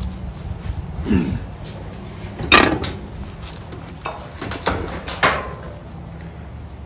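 Sheet-metal knocks and clanks from an old rat rod truck's body as its hood is handled and lifted open, with one sharp loud clank about two and a half seconds in and a few lighter clicks a little later.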